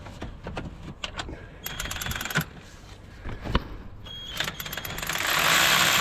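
Metal hand tools and a socket ratchet clicking and clinking in quick bursts, with one sharp knock in the middle. From about five seconds in, a loud hissing rush of noise sets in.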